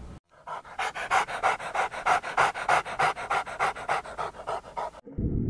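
An animal panting rapidly and evenly, about four to five breaths a second, cutting off abruptly near the end.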